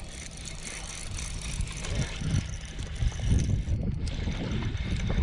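Wind buffeting the microphone: a steady hiss with irregular low rumbles that grow louder about two seconds in.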